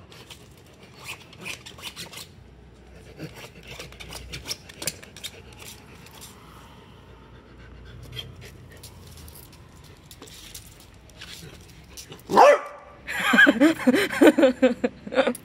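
Dachshund barking and yelping: a sudden loud bark about twelve seconds in, followed by a quick run of pitched barks and yelps. Before it, only faint scattered clicks and taps.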